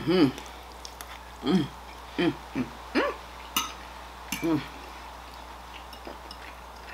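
A woman's short hummed "mm" sounds while chewing food, about half a dozen brief rising-and-falling hums, with a few light clicks of a metal fork on a plate.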